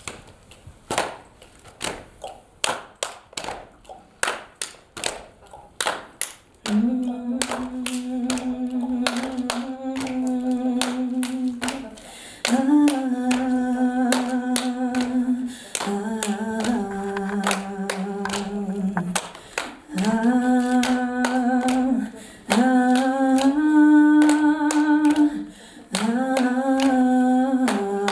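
Steady rhythmic hand clapping, about two to three claps a second. About seven seconds in, unaccompanied singing joins over the clapping in long held notes, each phrase a few seconds long and moving between a few pitches.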